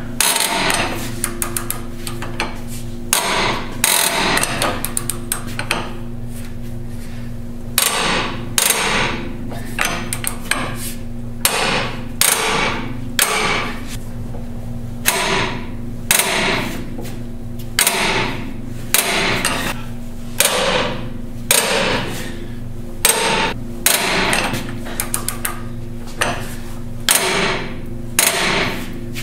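Repeated hammer blows on steel, roughly one a second with a short pause about five seconds in, each ringing briefly. The hammer is striking at a pitman arm puller under tension to shock a stuck pitman arm loose from the steering box.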